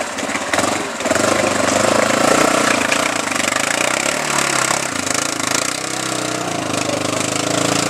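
ATV engine running under load with its pitch rising and falling, while the wheels churn mud and water as the quad is stuck in a mud hole.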